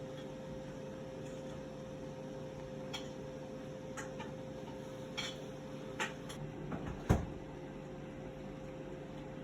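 A steady electrical hum with a faint held tone, and a few light clicks and knocks; the loudest knock comes about seven seconds in.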